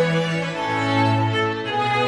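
Slow background music of sustained bowed strings, long held notes with a low bass line that changes note twice.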